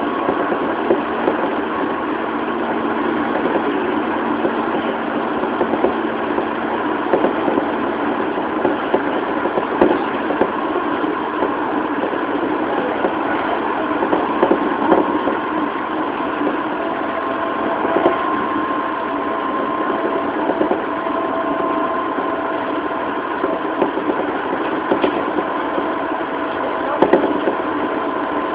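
Interior running sound of a JR East 205-series electric multiple unit motor car at speed: a steady rumble of wheels on rail with a faint, even whine from its MT61 traction motors and gearing. Occasional sharp clacks of wheels over rail joints come through.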